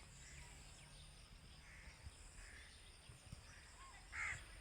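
A bird giving a few short calls in faint outdoor quiet, the loudest near the end.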